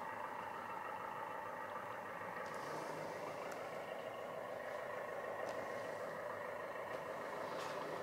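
The LESU Aoue 850K RC bulldozer's sound unit playing a simulated diesel engine idle through its small speaker as a steady hum. A few faint clicks come over it.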